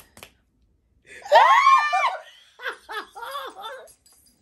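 A woman's loud high-pitched squeal about a second in, then choppy bursts of laughter, with a single hand clap at the start.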